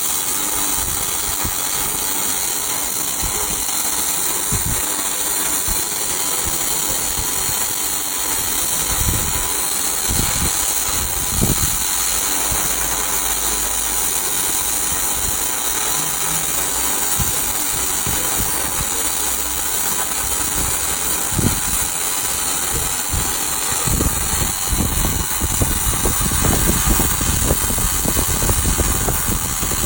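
Electric arc welding during a welding test: a steady, continuous hiss of the arc with a few faint low thumps, and a little more rumble near the end.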